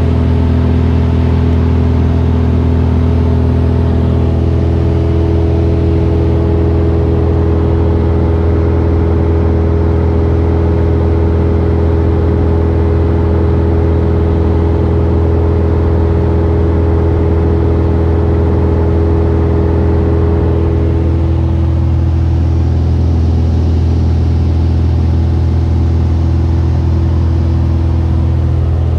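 Cabin noise of a 1975 Mooney M20F in flight, heard from inside the cockpit: its 200 hp four-cylinder Lycoming IO-360 engine and propeller make a steady low drone. A higher hum in the drone drops out about two-thirds of the way through and returns near the end.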